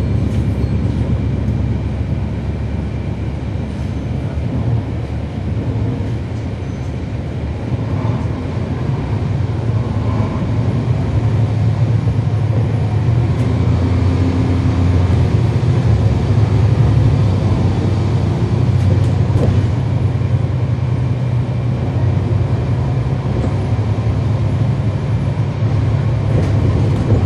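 Cummins ISL9 inline-six diesel engine of a 2012 NABI 40-foot transit bus, heard from inside the cabin, running steadily with a deep rumble. It grows louder from about a quarter of the way in and stays up, as the engine works harder under load.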